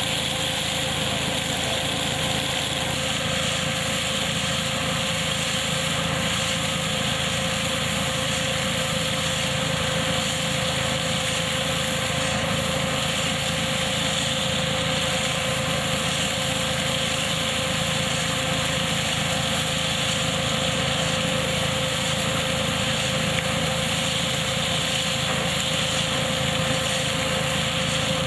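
Tractor-driven KF-501 hazelnut picking machine running steadily, with the tractor engine and the machine's steady whine and hiss holding even throughout.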